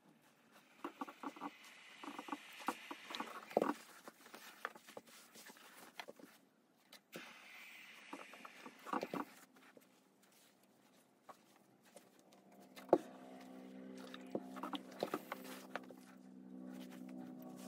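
Handling noises of ironing silk pongee kimono fabric: cloth rustling, and a steam iron shifted and set down on the ironing board, with irregular clicks and a sharp tap about thirteen seconds in. Soft background music with held notes comes in during the second half.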